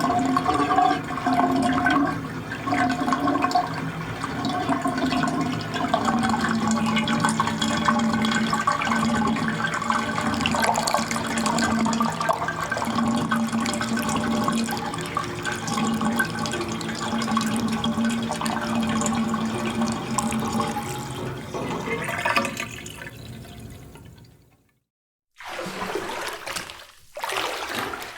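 Rushing, splashing water with a hollow ringing tone in it, steady for about twenty seconds and then fading out. After a brief silence a new burst of water noise starts, coming in surges.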